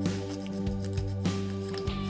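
Background music: held chords with a steady beat, about one beat every 0.6 seconds.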